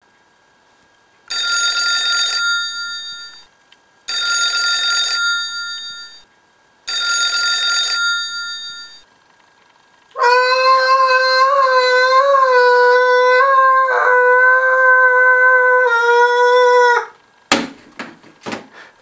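A landline telephone rings three times, each ring about two seconds long. Then a boy yells one long, steady "aah" for about seven seconds, followed by a few sharp clattering knocks as the handset is put back down.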